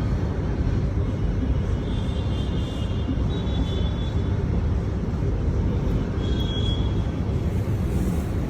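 Steady low rumbling background noise, with faint high-pitched tones about two seconds in and again near six and a half seconds.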